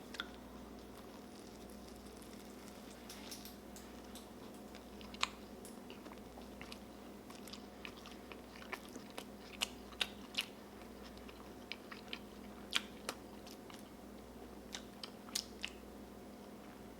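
Chewing a mouthful of a large homemade breaded-chicken burger: soft, irregular crunching clicks, sparse at first and more frequent from about five seconds in, over a faint steady hum.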